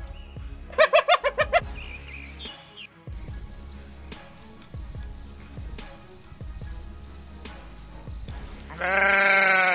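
A spotted hyena's giggle, one quick run of pulsed calls about a second in. Then crickets chirping, high trills about twice a second, and one sheep bleat near the end.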